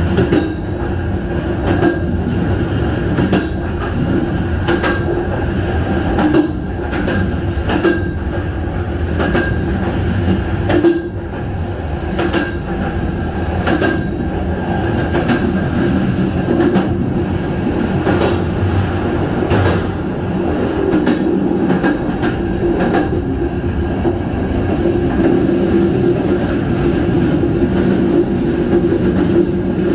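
Passenger train running along the track: a steady rumble with irregular clicks from the wheels over the rails and a faint steady high whine.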